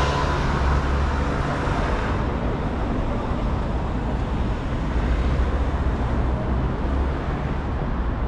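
Steady road traffic passing close by, a continuous rumble of cars and buses; a louder passing vehicle fades away over the first two seconds.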